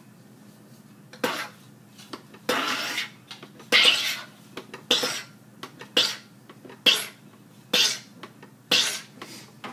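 SodaStream drink maker carbonating a bottle of water: repeated short presses on the gas button, each releasing a sharp hiss of CO2 into the water, about once a second, eight times.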